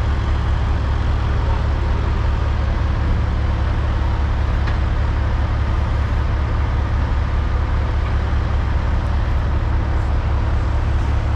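Heavy diesel equipment idling: a loud, steady, low rumble with no changes.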